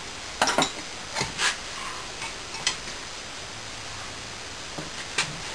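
A flat metal hand tool scraping and knocking loose molding sand off a freshly poured, still-hot sand casting of a steam-engine cylinder: a handful of short scrapes and taps over a steady hiss.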